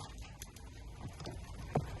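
Faint clicks and light knocks of king crab shell being handled during cleaning, with one sharper knock near the end, over a low steady rumble.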